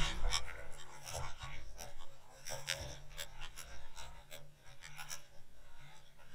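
Waterwolf underwater camera being towed and tumbling through the water: irregular clicks and knocks against the housing over a faint, on-and-off low hum.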